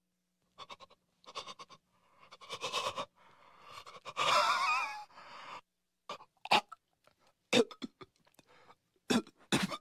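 A cartoon baby's voice making a run of short non-speech vocal noises, with a longer, louder wavering sound about four seconds in and a few sharp short ones after.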